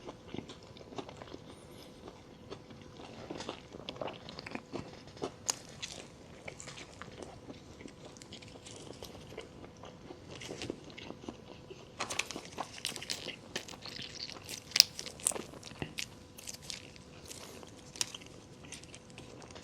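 Close-miked eating of Taco Bell food: crisp crunching bites and chewing in an irregular run of sharp cracks. The crunching turns denser and louder about twelve seconds in, with one especially loud crack shortly after.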